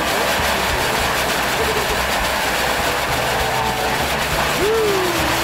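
Spinning firework wheel (a ground-mounted pyrotechnic sun wheel) throwing off sparks, giving a loud, steady hiss.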